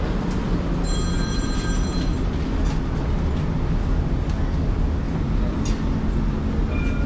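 Dubai Tram running along its rails: a steady low rumble and running noise, with a high ringing tone lasting about a second, starting about a second in.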